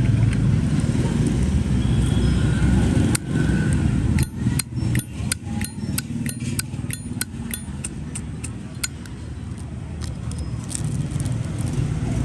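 A run of sharp metallic clicks, about three a second for several seconds, from a Zippo lighter being handled, over a steady low rumble of street traffic.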